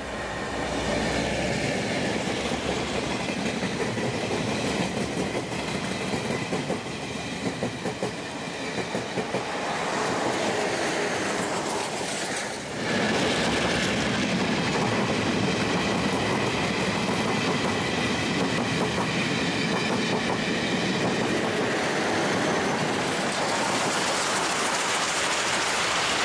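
Train of the DT668 steam locomotive and R152 diesel-electric locomotive running past, a steady wheel-on-rail running noise with a brief dip about halfway through.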